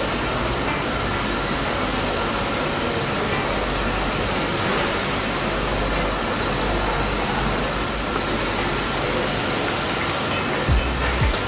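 WLtoys V929 Beetle toy quadcopter's small electric motors and propellers whirring steadily in flight, with a few low thumps of wind or handling near the end.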